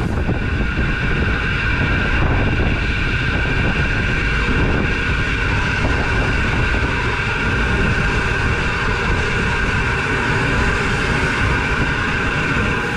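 Heritage steam train running slowly, heard from a camera mounted on it: a steady low rumble with a constant hiss above it.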